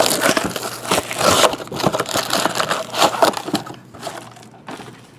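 Crackling and tearing of packaging as a sealed hobby box of trading cards is opened: a dense run of crinkles and rips that dies down after about three and a half seconds.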